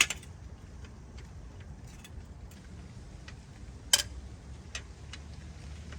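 2016 Ford Expedition's factory jack being cranked up by hand with its metal hook and extension tools, which clink and tick irregularly as they turn. There is a sharp clank at the start and a louder one about four seconds in.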